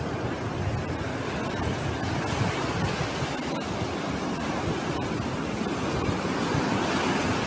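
Ocean surf washing steadily onto a sandy beach, with wind rumbling on the microphone.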